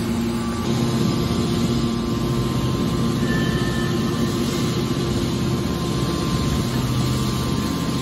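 Hydraulic scrap metal baler's power pack running steadily under load as the press lid is driven closed: an even machine hum with a low drone underneath.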